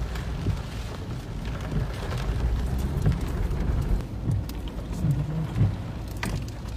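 Heavy rain hitting a car's windshield and roof, heard from inside the moving car, with scattered sharp taps over a low steady rumble of road and wind noise.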